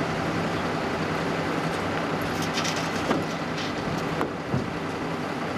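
Heavy vehicle engine idling steadily, with a few short knocks and clicks partway through.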